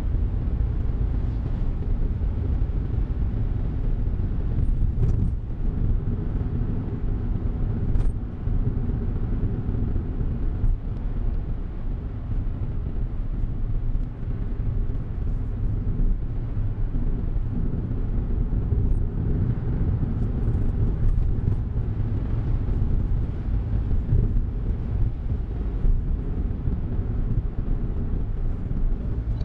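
Steady low road rumble and engine hum heard inside the cabin of a Suzuki Hustler kei car.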